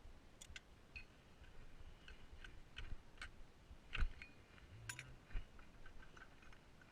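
Scattered light clicks and knocks of parts being worked loose by hand at the rear wheel hub of an ATV, the loudest about four and five seconds in.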